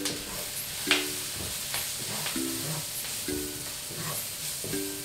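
Chopped onion and green pepper sizzling in oil in a frying pan while a wooden spoon stirs flour into them, with occasional clicks and scrapes against the pan. Background music with short plucked notes every second or so plays over it.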